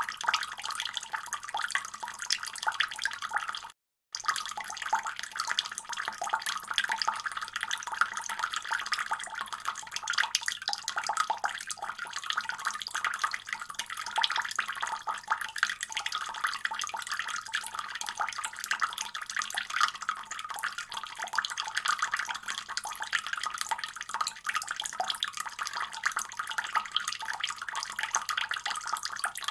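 Water running steadily from a faucet, a dense even splashing and hiss. The sound cuts out completely for about half a second roughly four seconds in, then resumes unchanged.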